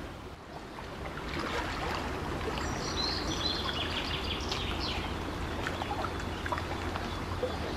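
Outdoor ambience: a steady rushing like flowing water that swells up about a second in, with a few high bird chirps around the middle.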